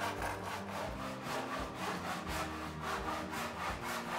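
Handsaw cutting across a wooden boat plank to a marked line, in steady even strokes, about three a second.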